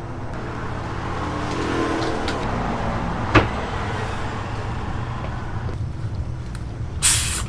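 A plastic bottle of carbonated lemon-lime soda (Chilsung Cider) twisted open near the end, its gas escaping in a short loud hiss of about half a second. Before it, a single sharp click, over a steady low hum.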